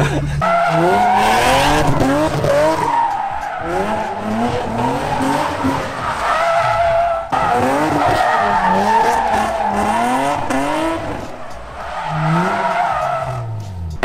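Infiniti G35 coupe's V6 revving up and down repeatedly while doing donuts, its rear tyres squealing in a long, continuous skid.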